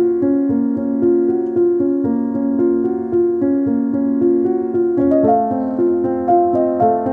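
Background music: a gentle keyboard melody of held notes, moving into a new phrase about five seconds in.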